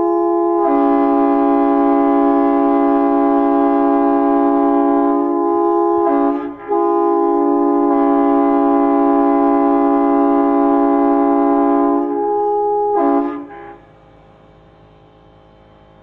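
Multi-chime air train horn blown on compressed air, sounding a steady chord of several tones. It comes in two long blasts with a short break about six seconds in and stops about fourteen seconds in, leaving a faint low hum.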